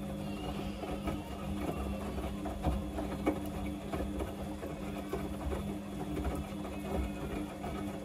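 Samsung front-loading washing machine tumbling a wet load of whites during the wash: a steady motor hum with irregular knocks as the laundry turns in the drum.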